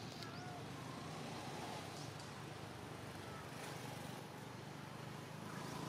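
Steady outdoor background noise, with a few faint short squeaks or chirps.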